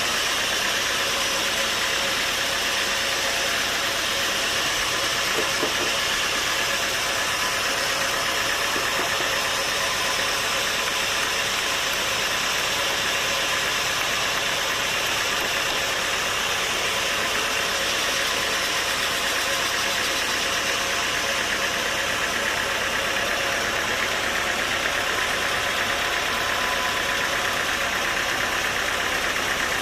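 Sawmill machinery running steadily: a continuous engine-like mechanical noise that holds level without pauses or sharp changes.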